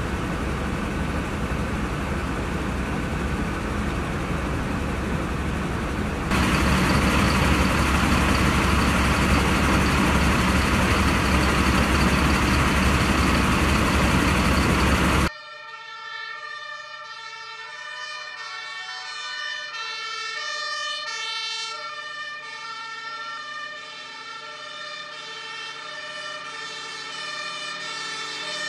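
Steady, loud noise from fire engines running at a fire scene, growing louder about six seconds in. About halfway it cuts off suddenly and is replaced by a quieter German two-tone emergency siren (Martinshorn) alternating between its two pitches.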